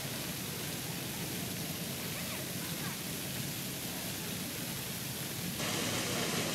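Fountain jets splashing in a steady rushing hiss. Near the end it turns suddenly louder and hissier, heard close up.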